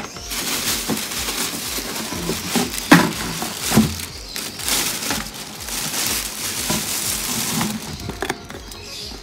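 A large plastic bag rustling and crinkling as hands dig through it, with a few sharp knocks of hard plastic items, the loudest about three seconds in.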